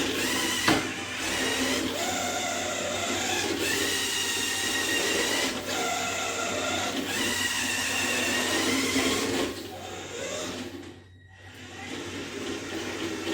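Radio-controlled toy Mini Cooper S driving: its small electric drive motor and gears whine, rising and falling in pitch as the throttle is worked, stopping and restarting every second or two, with one sharp click about a second in. The motor dies down about ten seconds in, then picks up again. The knocking noise it is being tested for has not been cured by the steering toe-in change.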